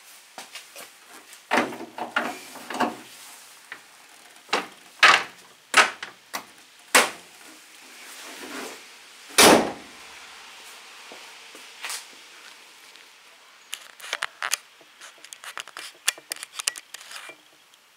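A string of knocks and clatter with one heavy, deep thud about nine and a half seconds in, as a car bonnet is lowered and shut, followed by a flurry of small clicks from handling.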